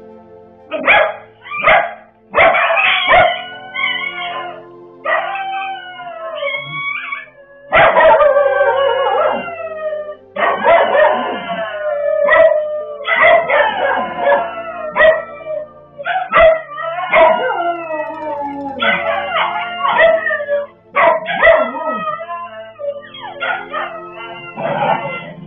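Puppy yelping and shrieking in pain while other dogs attack it: many loud, repeated cries that slide down in pitch, with some barking. Faint background music runs underneath.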